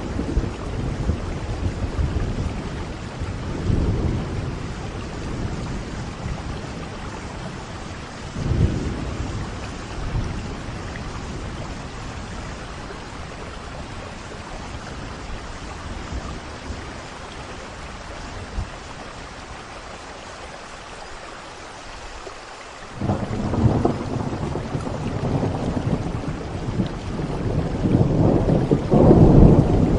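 Steady rain with thunder: low rumbles a few seconds in and again about 8 seconds in, then a loud roll of thunder breaks out past the two-thirds mark and builds toward the end.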